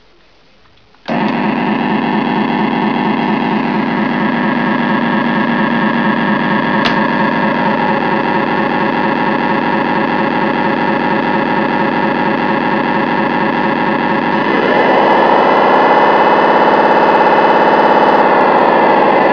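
Simulated diesel engine sound from an RC model tug's sound module, starting suddenly about a second in and idling with a steady, even chug. About three-quarters of the way through it revs up, getting louder and higher, as the tug's propeller starts turning.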